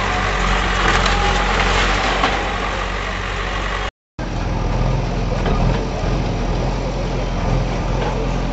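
JCB backhoe loader's diesel engine running steadily while its bucket knocks down a brick building, with intermittent knocks and crunches of falling brick and debris. The sound drops out briefly about four seconds in.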